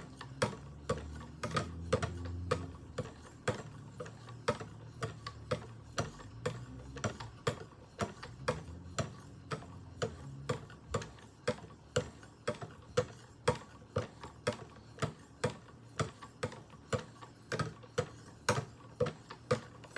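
Fine 3000-grit stones on a guided-rod knife sharpener stroked along a steel knife edge, giving a light, even tick about twice a second.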